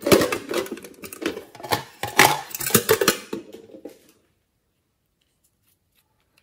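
Hard plastic owl-shaped case being handled in the hands: a quick run of clicks, taps and rattles that stops about four seconds in.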